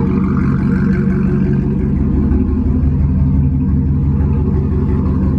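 Chevrolet Silverado pickup's engine idling, loud and steady with a deep throbbing exhaust note.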